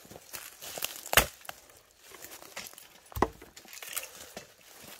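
An axe chopping firewood logs on a chopping block. There are two sharp strikes, about a second in and about three seconds in, with lighter knocks of wood being handled between them.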